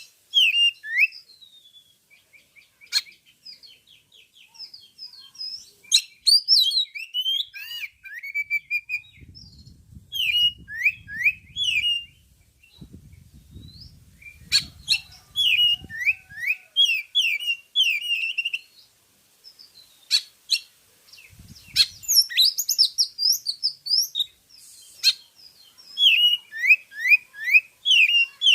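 A white-tailed oriental magpie-robin (kacer) singing: repeated phrases of quick, varied whistled and chattering notes with short pauses between them. A low rumble sounds beneath the song for several seconds partway through.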